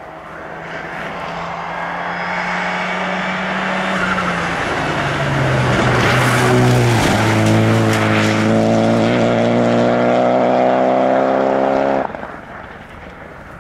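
Renault Clio rally car approaching at speed on a stage road, its engine note stepping down in pitch about halfway through as it comes past close by. It then accelerates away with the engine rising steadily in pitch, until the sound cuts off suddenly near the end.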